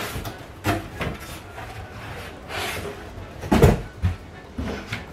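Empty cardboard boxes being lifted, shifted and set down, giving a string of hollow knocks and scrapes; the loudest knock comes about three and a half seconds in.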